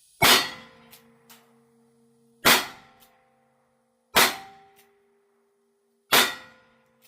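Pistol fired four times, slow deliberate shots about two seconds apart, each followed by a lingering metallic ring.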